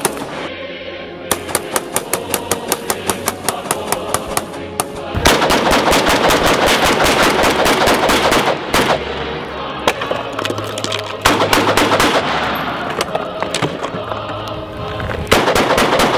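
AK-74 rifle firing a long rapid string of 5.45 mm shots, about six or seven a second for some three seconds, then more shots under louder background music.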